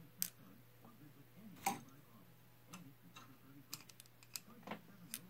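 Scattered small metallic clicks and ticks from parts of a vintage radio's tuning dial drive being handled and fitted by hand, with one louder click about a second and a half in and a quick run of light ticks near the end, over a faint steady hum.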